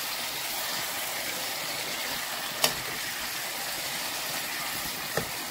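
Raw chicken pieces sizzling in hot oil in a pan while being stirred with a wooden spatula: a steady hiss, with two sharp clicks, one about two and a half seconds in and a fainter one near the end.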